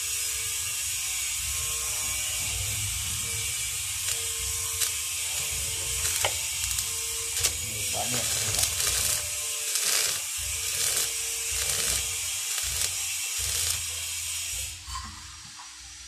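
Stick (shielded metal arc) welding: the electrode's arc crackles and sizzles steadily as a bead is laid on a square steel tube door frame, then cuts off about a second before the end.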